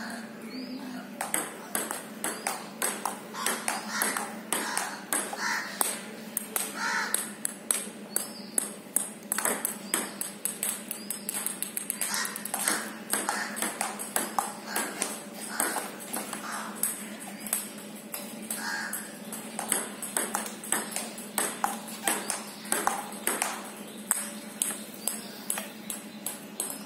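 Table tennis rally: a celluloid ball ticking sharply off paddles and the table in a quick, steady run, about two or three hits a second.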